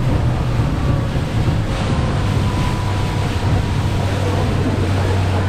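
A boat's engine running steadily at a low hum, under wind and water noise.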